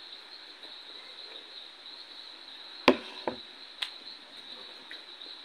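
Steady high chirring of crickets, with a sharp knock about three seconds in, a second knock just after and a fainter click, as a plate is set down on a hard surface.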